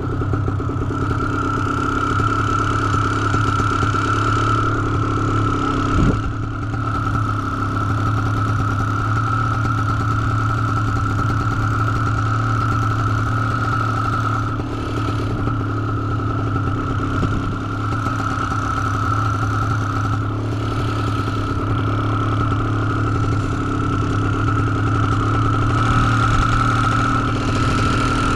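Paramotor engine idling steadily on the ground, its pitch unchanging, with a single knock about six seconds in.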